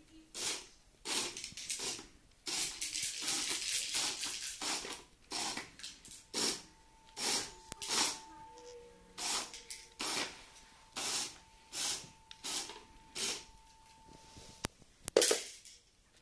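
Repeated short hissing noises, most a little under a second apart. From about six seconds in, a faint steady whine from the LEGO electric motor turning the train turntable runs for some eight seconds. A sharp knock comes about fifteen seconds in.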